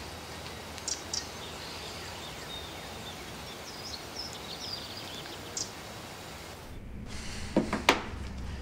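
Steady outdoor ambience with faint, scattered bird chirps and a few soft ticks. Near the end it gives way to quieter room tone with a few sharp clicks.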